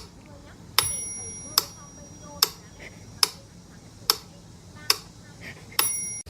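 Sharp ticks repeating steadily, a little faster than once a second, like a clock ticking; two of them carry a short, high ringing ping.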